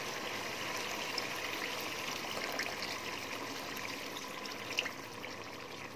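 Water poured in a steady stream from a glass into a steel pot of mutton and taro curry, splashing into the oily gravy.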